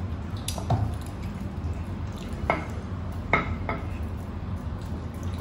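Dishes and bones clinking on plates as food is handled by hand at a meal. There are a few scattered sharp clicks, the loudest about three and a half seconds in, over a low steady hum.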